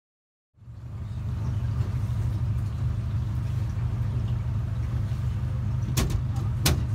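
Swamp tour boat's motor running steadily, a deep, even hum, with two sharp knocks less than a second apart near the end.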